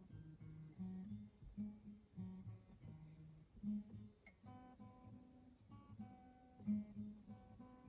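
Acoustic guitar played softly, single picked notes over a low bass line with a slow melody above.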